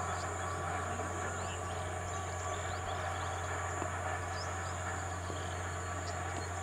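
Steady outdoor background noise with a constant low hum and scattered faint bird chirps.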